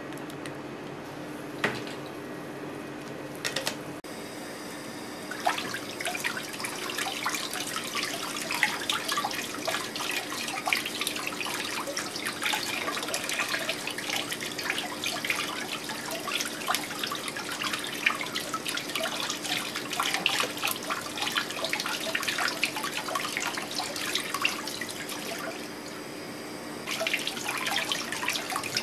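Kitchen tap running onto a tuna collar as hands rinse it in a stainless steel sink, the water splashing into a plastic tub below. The water starts about five seconds in, after a few sharp clicks, and eases briefly near the end. A faint steady hum runs underneath.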